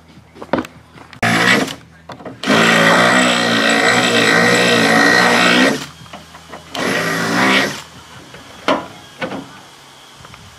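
Power drill with a twist bit drilling a hole through a painted bracket. It runs in three goes: a short burst about a second in, a long steady run of about three seconds, and another short burst a little after the middle. A few light clicks follow near the end.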